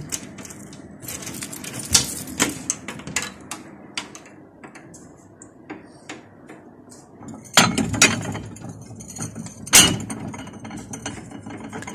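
Lock and wooden door of a glass-fronted display cabinet being worked open, then china plates clinking and knocking as they are set in stacks on its shelf, with the sharpest knocks about seven and a half and ten seconds in.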